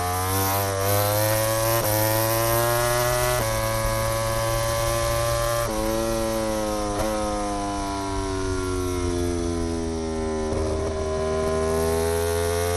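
Onboard sound of a Yamaha YZR-M1 MotoGP bike's inline-four engine. It revs up with several sudden pitch steps at the gear changes, holds steady for a couple of seconds, then its pitch falls slowly through the second half as the bike slows, picking up slightly near the end.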